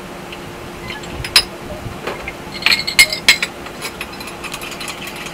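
A metal spoon clinking against a glass measuring jug while milk is stirred in: a couple of single clinks, then a quick run of clinks from about two and a half to four and a half seconds in.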